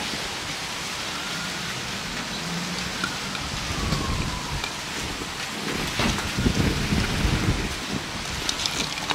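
Vegetables dropped by hand into a pot of water, making soft splashes and bumps from about four seconds in, over a steady hiss from the pot on its burner.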